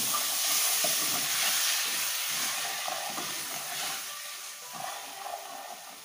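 Diced tomatoes sizzling in hot oil with onion, garlic and paprika, stirred with a spatula that scrapes through the pan. The sizzle fades steadily over the last few seconds.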